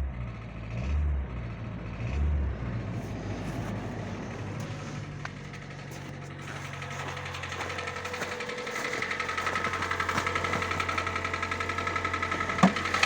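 Hyundai i40's 2.0-litre G4NA petrol engine running with a knock from the piston group, which the mechanic puts down to scuffed cylinder walls. A few low thuds come in the first two seconds, the running grows louder about eight seconds in, and a single sharp click comes near the end.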